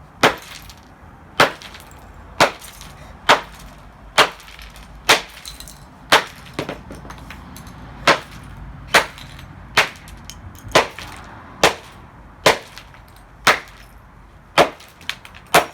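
Hammer striking a Dreamsky DS206 alarm clock radio over and over, a sharp cracking blow about once a second, as the plastic casing is smashed apart.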